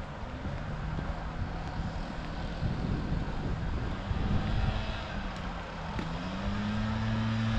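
An engine running with a steady hum, its pitch rising about six seconds in and then holding.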